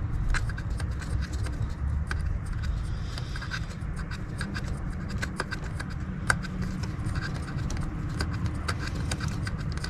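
Handling noise from a removed diesel glow plug and multimeter test leads: scattered light clicks and scrapes over a steady low rumble.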